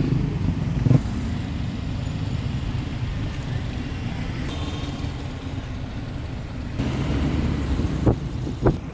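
A moving vehicle's steady low rumble of engine and road noise, with street traffic around it. Two short sharp sounds stand out near the end.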